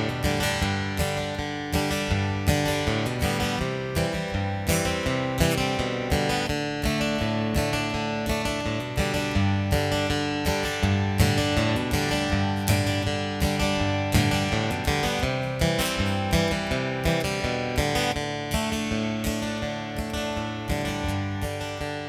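Acoustic guitar strummed in a steady rhythm, an instrumental break in a simple three-chord folk song.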